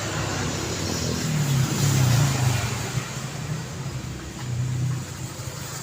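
City street traffic: cars passing with a steady noise of tyres and engines, one vehicle's engine loudest about two seconds in and another swelling briefly about four and a half seconds in.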